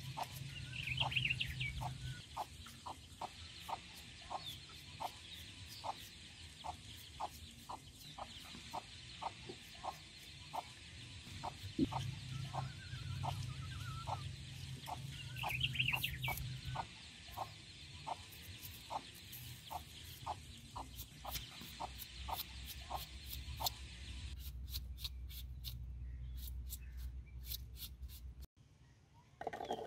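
A hen clucking steadily, about two short clucks a second, with a couple of higher calls mixed in. About three-quarters of the way through, the clucking gives way to quick, sharp clicks of a knife slicing through a red onion.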